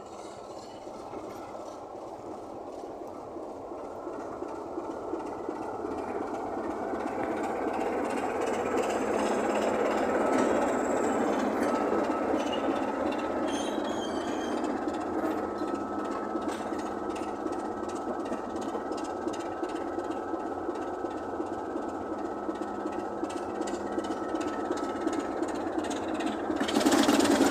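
Class 27 diesel locomotive D5394's Sulzer six-cylinder engine running as the locomotive moves off. It grows louder over the first ten seconds, then holds steady.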